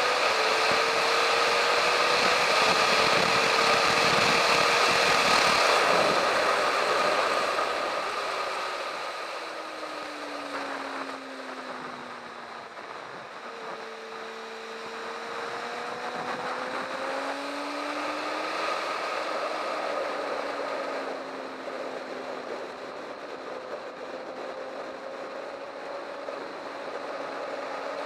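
Sport motorcycle riding fast on track, with heavy wind rush over the bike-mounted camera and the engine's tone underneath. The wind rush is loudest for the first several seconds, then eases about eight seconds in as the engine pitch falls while the bike slows for a bend. The pitch then climbs and dips again as the rider drives through the corners.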